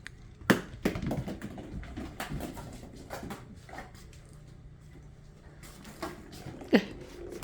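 Knocks and light patter of a kitten playing with a toy ball on the floor: a sharp knock about half a second in, a run of light taps over the next two seconds, and another sharp knock near the end.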